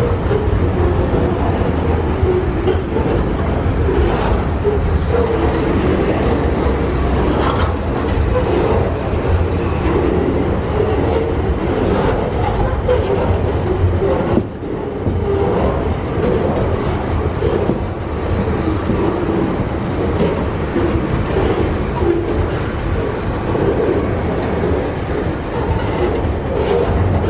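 Tasrail container freight train's flat wagons rolling past close by: a steady, loud rumble of steel wheels on the rails with occasional clicks over the rail joints.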